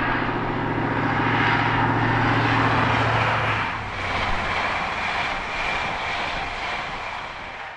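An engine running with a steady low drone under a rushing noise; the drone drops away about halfway through and the rushing fades out at the end.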